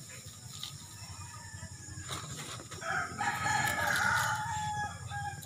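Rooster crowing: one long call beginning about three seconds in, the loudest sound here. Before it, a soft rustle of sand being shaken through a mesh sieve.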